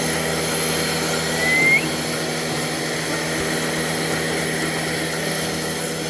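Steady mechanical hum of dairy milking machinery running, with one short rising squeak about one and a half seconds in.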